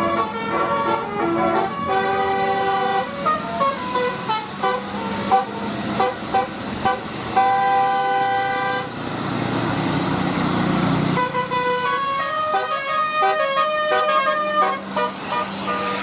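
Bus 'telolet' musical air horn playing quick tunes of stepped notes. The notes break off midway while a rushing noise swells for about two seconds, then the horn tunes start again.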